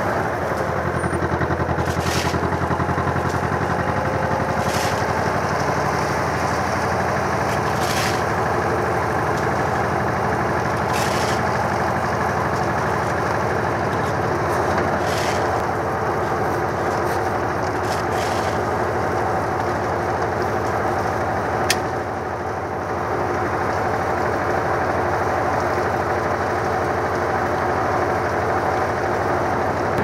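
Concrete mixer's engine running steadily as the drum turns, with a short rasping noise coming back about every three seconds and one sharp click about two thirds of the way through.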